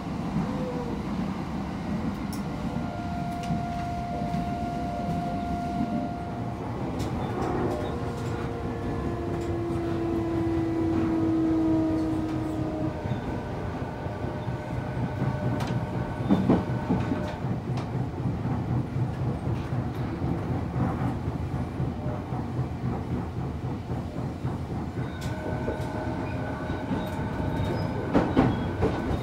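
JR East EV-E301 series battery-electric train running, heard inside the passenger car: a steady rumble of wheels on rail under the whine of its Mitsubishi IGBT VVVF inverter, whose tones shift in pitch now and then. Two sharp rail-joint clacks come about halfway through and near the end.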